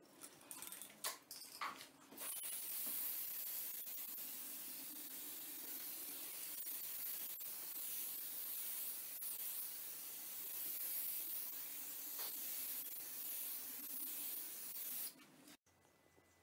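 Aerosol spray can spraying in one long, steady hiss that lasts about thirteen seconds and cuts off suddenly shortly before the end. A few clicks and knocks come just before the spraying starts.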